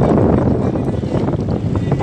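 Wind rumbling and buffeting on the microphone aboard a boat at sea.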